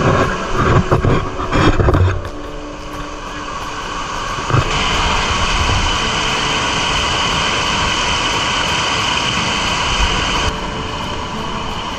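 Spring water gushing from a pipe outlet and splashing over rocks: a steady rush that grows stronger about five seconds in and eases slightly near the end, after a louder, uneven stretch in the first two seconds.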